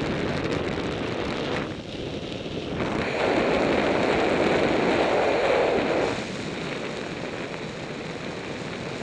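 Airflow rushing over the microphone in unpowered gliding flight under a paraglider wing, with no motor running. The rush swells louder for about three seconds in the middle, then eases.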